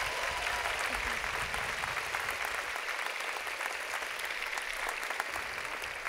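Audience giving a round of applause, steady clapping from many hands.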